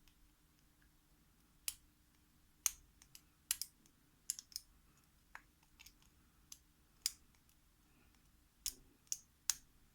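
Short, sharp metallic clicks at an irregular pace, about a dozen in all, from a lock pick and tensioner working the pins in the keyway of a Master Lock No. 37 four-pin padlock. A faint steady hum lies underneath.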